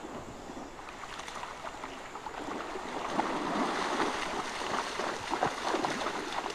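Lowland tapir splashing as it wades through shallow river water, the splashes growing louder and more frequent about three seconds in.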